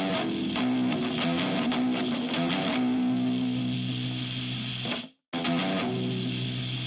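Instrumental funk-rock passage led by strummed electric guitar, with a low note held under it in the second half. The music cuts off abruptly about five seconds in and starts again a moment later.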